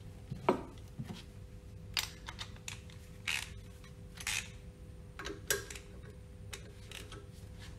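Hand tools on a steel pump: metal clinks as tools are picked up and set down, and short runs of clicking from a socket ratchet wrench as bolts are worked. All of it sits over a steady low hum.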